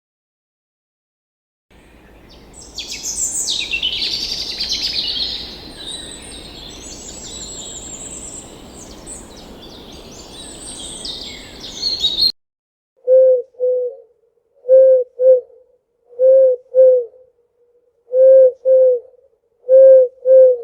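A chorus of songbirds chirping and twittering over a background hiss, cutting off about twelve seconds in. Then comes a series of low paired hoots from a bird, five pairs about every second and a half to two seconds.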